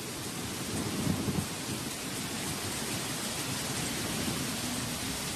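Heavy tropical downpour falling on rainforest foliage, a steady hiss of rain, with a low rumble swelling about a second in.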